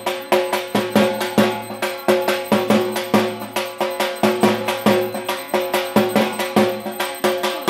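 Kansar, the flat bell-metal gong of Bengali worship, beaten loudly with a stick in rapid, even strokes, its metallic ring carrying on between the strikes.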